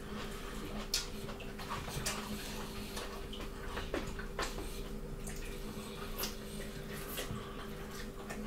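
Quiet wet chewing and lip-smacking of people eating rice and curry with their fingers, with scattered soft clicks, over a faint steady hum.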